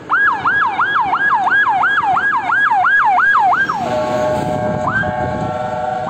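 Fire engine siren yelping: fast rising-and-falling wails, about three a second. A little under four seconds in it switches to a steady, loud horn-like blare, then starts yelping again at the very end.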